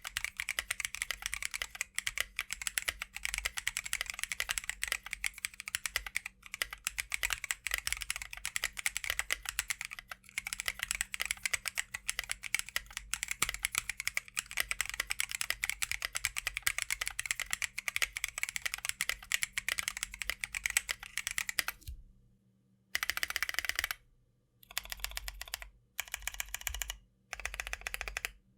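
Mechanical keyboard with lubed and filmed Drop Holy Panda tactile switches on a carbon fiber plate, with KAT Milkshake keycaps, typed on fast and continuously. Near the end the typing breaks into a few short bursts with brief silences between them.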